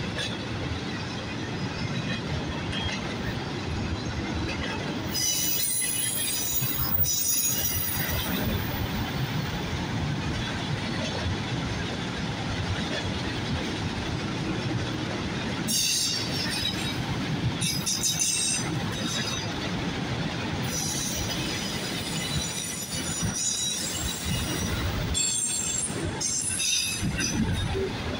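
Freight train of autorack cars rolling past, a steady rumble of wheels on rail. High-pitched metal squealing comes and goes several times, about five seconds in, again around sixteen seconds, and through much of the last third.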